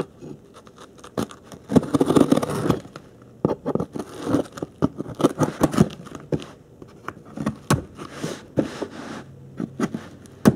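Knife blade slicing and scraping along the packing tape on a cardboard box, with the box being handled; an irregular run of scrapes, crackles and clicks.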